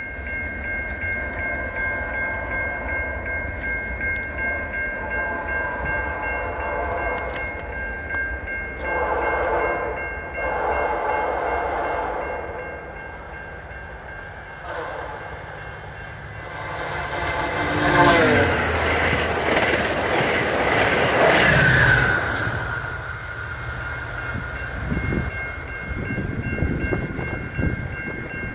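VIA Rail passenger train sounding its horn for a level crossing: two long blasts, a short one and a final long one, the pitch dropping as the locomotive passes, followed by the rumble of the train going by. A level-crossing bell rings steadily throughout.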